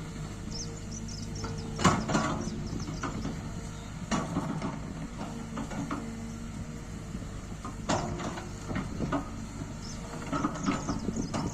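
Excavator's diesel engine running steadily with a held hydraulic whine. Loud sharp knocks and clanks come four times, about two to four seconds apart.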